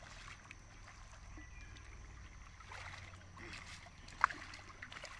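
Kayak paddles dipping and splashing in calm water as two people paddle, with one sharp knock about four seconds in.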